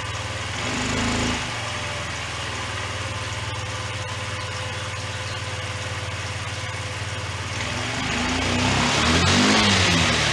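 1993 Yamaha Riva 125 scooter's single-cylinder four-stroke engine idling steadily on its first start of the season, just after a throttle cable replacement. There is a short throttle blip about a second in, and near the end the engine is revved up and back down twice.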